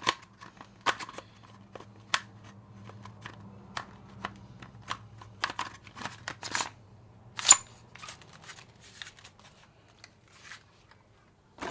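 Plastic clicks, knocks and scrapes of a TacToys M4A1 gel blaster's adjustable buttstock being handled and fitted with its release lever held in, irregular, with the sharpest click about seven and a half seconds in. A faint low hum sits underneath for the first eight seconds or so.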